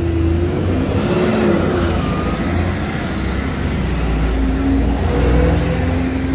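Double-decker city bus passing close by, its engine running with a deep low rumble and shifting engine tones as it moves off, with a faint high whine for the first few seconds.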